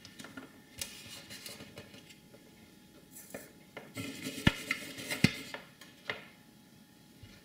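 Tools handled on a workbench while desoldering a chip from a circuit board: scattered clicks and metallic clatter, with two sharp clacks about three-quarters of a second apart around the middle.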